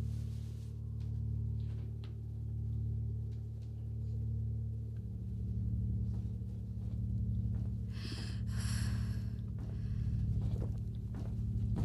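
Low, dark drone of a film score, its loudness swelling and fading about every second and a half, with its notes shifting about five seconds in. About eight seconds in, two short scraping noises sound over it.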